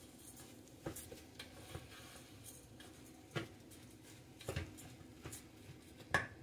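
A plastic spatula stirring and scraping raw rice, quinoa and grated carrot in a rice cooker's nonstick pot: soft irregular scrapes and knocks, the sharpest near the end.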